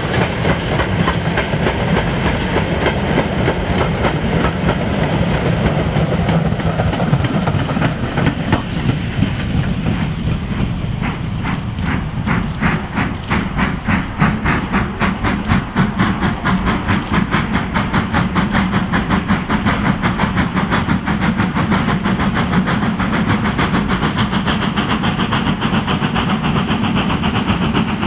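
Freight wagons rolling past over the rails, then a steam locomotive working hard at the head of a goods train, its exhaust beating in a quick, even rhythm from about ten seconds in.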